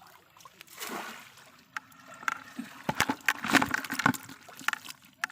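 Water splashing and sloshing in irregular bursts, with a few knocks, loudest about three to four seconds in.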